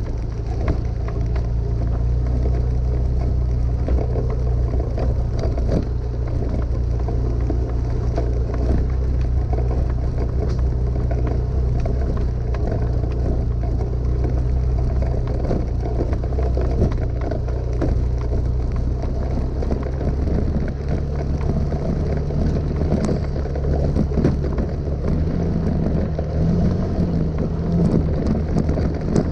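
Motor vehicle engine running steadily while driving over a rough, rocky dirt track, with frequent knocks and rattles from the stony surface. The engine note rises a little near the end.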